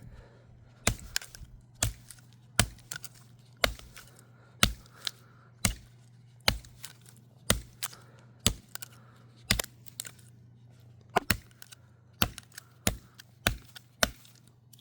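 A folding pocket knife's blade chopping into wood: about fifteen sharp chops, roughly one a second, coming a little quicker near the end.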